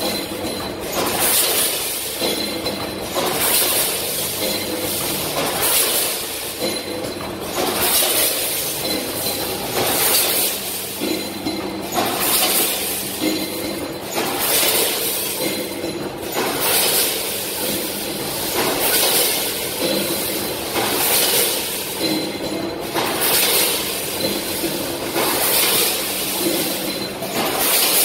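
Microwave popcorn packaging machine running in steady cycles: a burst of hiss repeats about every second and a half over a continuous machine hum.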